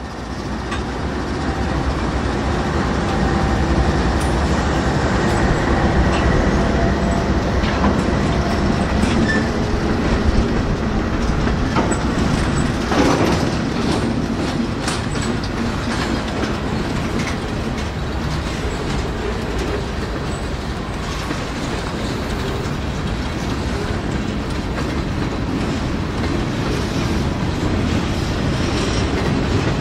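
Norfolk Southern diesel freight train passing close by: the locomotives run past, then the freight cars follow with their wheels clattering over the rail joints. The sound swells over the first couple of seconds as the train comes by.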